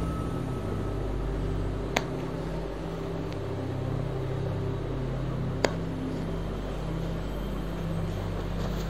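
A steady low hum of room background noise, broken by two sharp clicks, one about two seconds in and one a little past five seconds.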